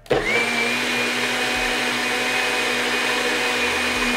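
NutriBullet blender motor running, blending chickpea flour and water into a thick batter. It spins up at the start to a loud, steady high-pitched whine and winds down near the end.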